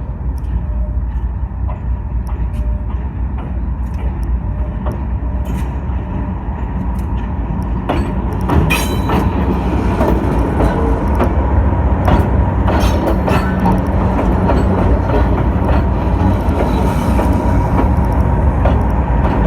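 Train rolling in: a heavy, steady low rumble with irregular clanks and knocks from the wheels and cars, getting louder and busier about halfway through, with a thin steady squeal.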